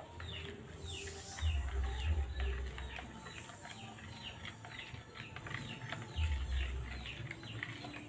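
Small birds chirping over and over in short, falling chirps, with a low rumble twice, about a second and a half in and again about six seconds in.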